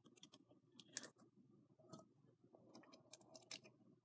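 Faint handling noise from a clear plastic tube with green slime in it: scattered small clicks and taps, one sharper click about a second in and a few more close together near the end.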